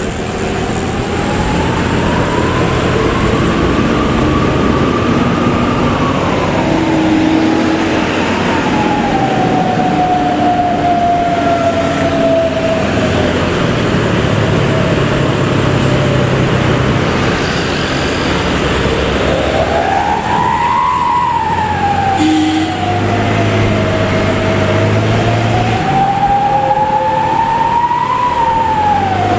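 A bus's 'serigala' (wolf) howling exhaust wails over the diesel engine's running, its pitch rising and falling slowly like a siren, three rises in all.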